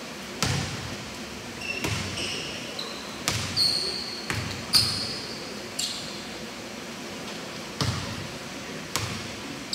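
A basketball bouncing on a gym floor in an uneven beat, with about seven sharp bounces one to two seconds apart, each trailing off in the hall. Several short, high sneaker squeaks come between the bounces in the first half.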